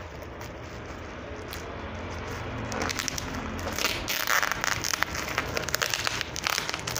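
Plastic bubble wrap crinkling and rustling as hands pull and handle a wrapped package, growing louder in the second half.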